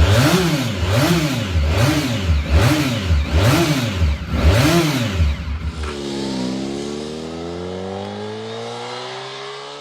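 Honda NR750's oval-piston V4 engine being blipped repeatedly, about six quick revs a second apart, then the revs drop and climb slowly.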